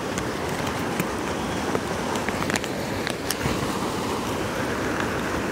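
Steady rushing of a forest creek, with a few faint clicks and rustles on top.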